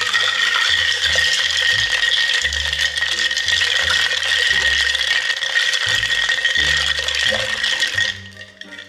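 Ice cubes clinking and rattling in a glass mason jar as a straw is churned through them, held close to the microphone. The loud rattle is continuous and cuts off suddenly about eight seconds in.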